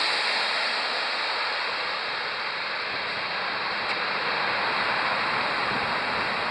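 Broad, steady roar of a twin-engine widebody jet airliner that has just passed low overhead on final approach. It eases off over the first couple of seconds, then holds.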